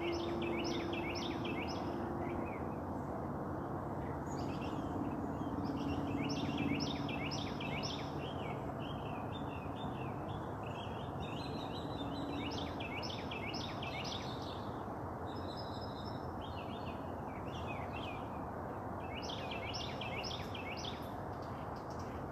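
A songbird singing, repeating a short phrase of four or five quick down-slurred notes every few seconds, with other bird chirps between, over a steady outdoor background noise.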